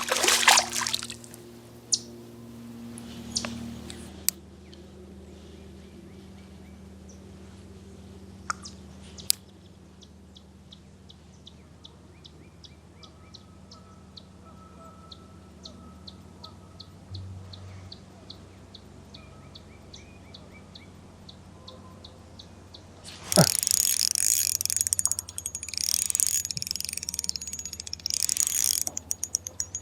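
A light, regular ticking about twice a second, then about 23 s in a spinning reel's drag suddenly starts clicking loudly and keeps going as a fish pulls out line.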